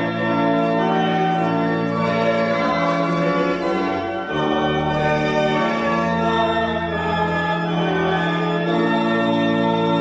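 Organ playing music in sustained chords that change every second or two.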